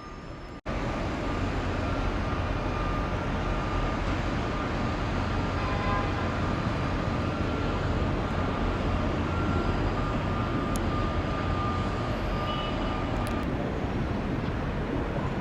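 Steady vehicle traffic rumble and road noise, starting abruptly just under a second in and running on evenly with a strong low rumble.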